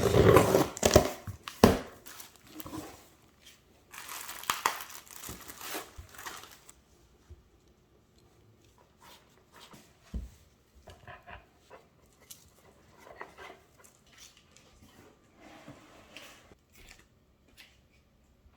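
Irregular crinkling and tearing of material being handled by hand, loudest in the first two seconds and again from about four to six seconds in, then fainter scattered rustles with a short knock about ten seconds in.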